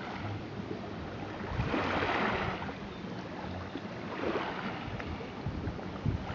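Sea waves washing onto a stony shore: a hiss of surf that swells and fades about every two seconds, over a low wind rumble on the microphone.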